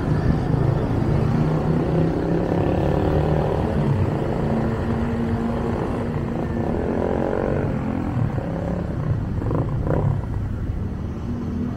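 Steady car engine and road noise from a vehicle driving slowly through city traffic.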